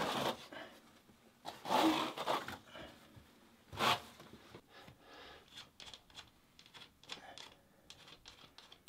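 Notched trowel scraping and combing thin-set mortar across the shower subfloor: a long stroke about two seconds in, a short sharp one near four seconds, then quieter scrapes and rubs.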